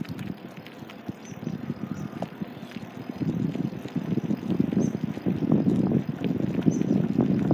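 Rough rolling rumble of wheels on coarse asphalt, with wind buffeting the microphone; it gets louder about three seconds in.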